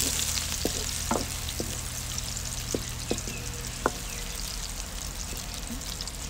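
Sliced onions sizzling steadily in hot ghee in an aluminium karahi, frying until golden, while a wooden ladle stirs them and clicks against the pan about half a dozen times.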